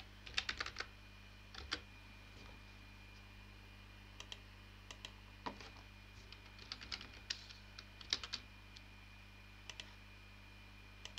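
Faint tapping on a computer keyboard, in short scattered clusters of clicks, over a low steady electrical hum.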